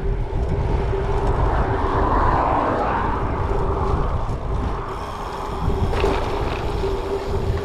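Wind rushing over a GoPro's microphone while a gravel bike is ridden fast on the road, with a faint steady hum under it. The rush swells about two seconds in, then eases.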